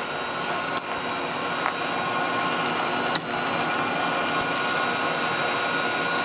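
Vintage Canedy-Otto drill press running on its 3 hp three-phase motor under a variable frequency drive: a steady whirring hum with a steady high whine over it. Two sharp clicks come about one second and three seconds in.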